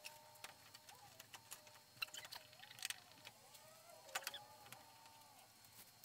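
Near silence, broken by a few faint clicks, about three of them.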